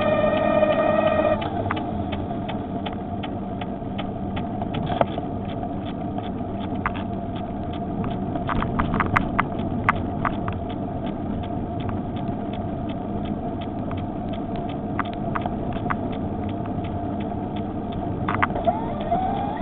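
Electric bicycle's motor running with a steady whine that cuts off about a second in, then coasting with a steady rumble of tyres and wind and scattered sharp clicks. Near the end the motor whine comes back, rising in pitch.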